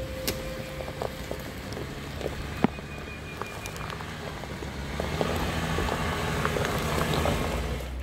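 Stock Jeep Wrangler crawling slowly over a rutted dirt track: low engine hum with the tyres crunching over gravel and sticks, small stones clicking and popping. The engine and crunching get louder about five seconds in as the Jeep nears.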